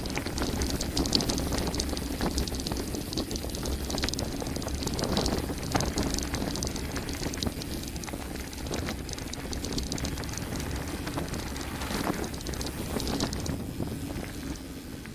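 Mountain bike descending a gravel forest road at speed: tyres crunching over loose stones and the bike rattling, over a steady low rumble.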